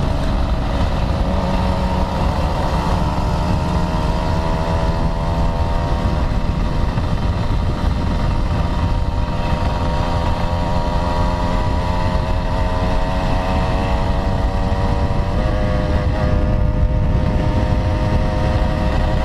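Old underbone motorcycle's engine running at a steady cruise under the rider, its pitch climbing slowly as it gathers speed and shifting once about three-quarters of the way through, over a strong low rumble of wind on the microphone.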